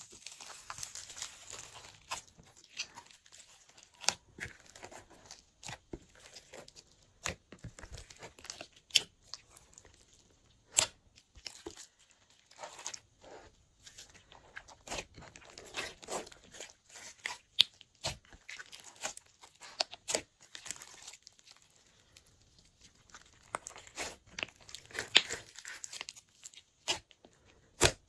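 Glossy slime being worked by hand, squished and stretched, giving irregular sticky pops and clicks with softer crackling in between.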